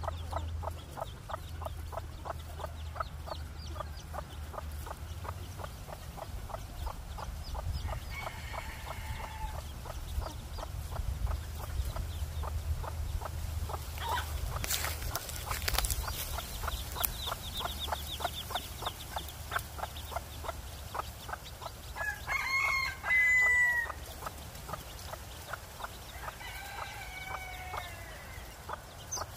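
A white bantam hen clucking in a quick, steady run while her chicks peep around her. About three-quarters of the way through, a louder drawn-out fowl call cuts in, and a fainter falling call follows a few seconds later.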